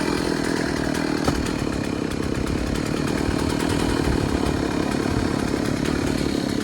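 Stihl 066 two-stroke chainsaw running steadily at high speed, cutting through wood.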